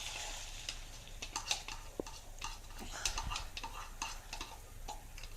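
Beaten egg poured into a frying pan of melted margarine, with a short hiss as it goes in, then a utensil tapping and scraping lightly and irregularly against the pan.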